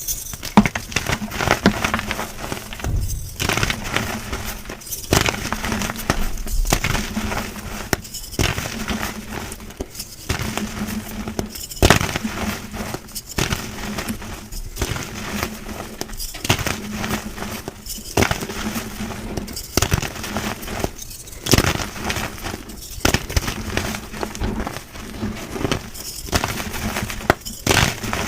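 Blocks of gym chalk being crushed and crumbled, a dense, powdery crunching and crackling that comes in short spells broken by brief pauses every second or two.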